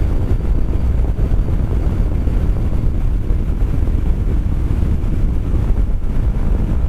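Steady low wind rumble over the microphone while riding a Kymco Xciting 400i maxi-scooter at highway speed, with the scooter's running noise mixed in.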